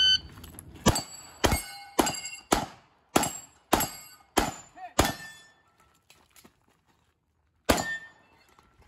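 A shot-timer start beep, then eight 9mm Glock 48 pistol shots about half a second apart, each followed by the ring of struck steel targets. After a pause of about two and a half seconds, one more shot.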